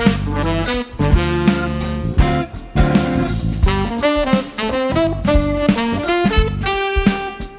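Jazz-rock band playing: a tenor saxophone line in quick, broken phrases over drum kit, bass and keyboard.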